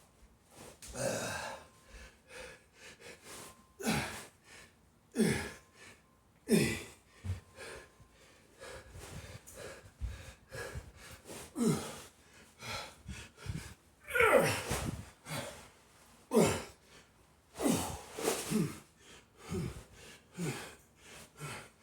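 A man breathing hard from exertion during a heavy sandbag workout: forceful, partly voiced exhalations and grunts every second or two, many dropping in pitch.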